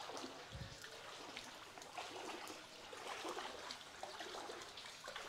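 Faint trickling and small splashes of flowing floodwater.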